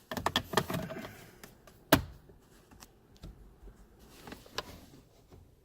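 Plastic steering column cover clicking and rattling as it is worked onto its clip tabs: a quick run of clicks in the first second, one sharp snap about two seconds in, then a few fainter clicks.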